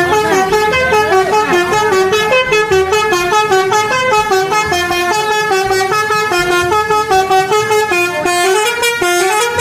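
Telolet bus horn playing its multi-note melody: a quick run of stepping horn notes that goes on throughout.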